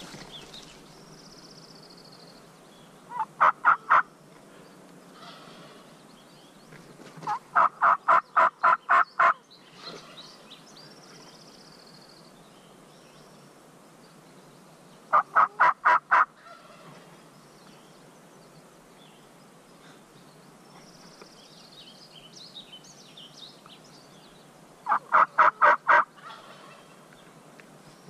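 Turkey yelping: four series of loud, evenly spaced yelps at about five notes a second, the longest run about nine notes. Faint songbird chirps come between the series.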